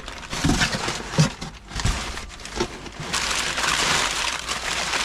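Kraft packing paper crinkling and rustling while a heavy steel swivel seat base is lifted out of a cardboard box, with a few dull thumps in the first two seconds.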